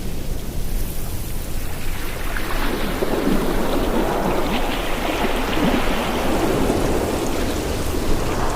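Ocean surf with a steady low wind rumble; a wave builds about a quarter of the way in, washes on for several seconds and eases off near the end.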